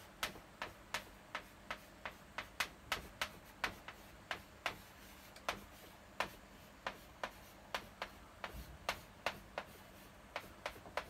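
Chalk clicking and tapping against a blackboard as characters are written: an irregular run of short, sharp ticks, about three a second.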